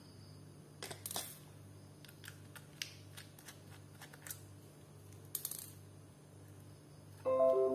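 Small metallic clicks and taps of a screwdriver undoing the screws that hold a laptop hard disk in its caddy, several short ticks over a faint low hum. Near the end a loud strum of background music starts.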